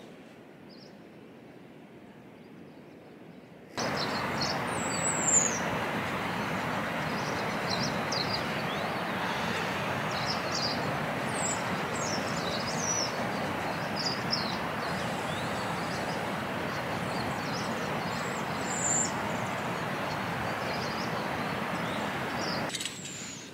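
Steady rush of a nearby mountain river and waterfall, with birds chirping now and then above it. The water sound comes in suddenly about four seconds in, after a quieter stretch, and cuts off just before the end.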